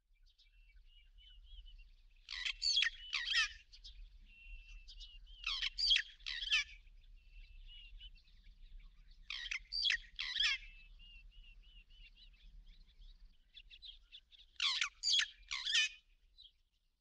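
Wild bird calling: four loud bouts of quick, sweeping notes, about one every four seconds, with softer twittering between them.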